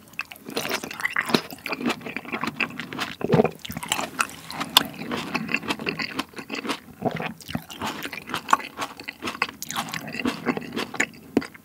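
Close-miked chewing of a juicy cherry tomato, a dense run of small mouth clicks.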